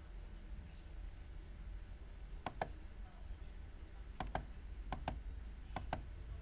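Computer mouse button clicked four times, each click a quick press-and-release double tick. The first comes about two and a half seconds in and the other three fall in the last two seconds, over a low steady hum.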